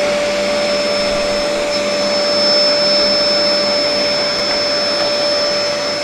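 INGCO 2000 W bagless multi-cyclone canister vacuum cleaner running steadily: a rush of air with a steady whine from the motor.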